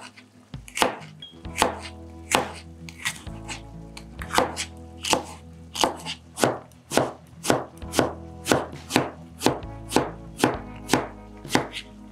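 Chef's knife slicing a yellow bell pepper into strips on a cutting board: a steady run of sharp knife strokes hitting the board, about one every 0.7 s at first and quickening to about two a second.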